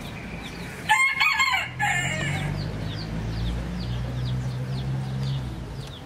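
A rooster crowing once about a second in, the crow ending on a falling note, with small birds chirping in short, rapid, repeated notes throughout.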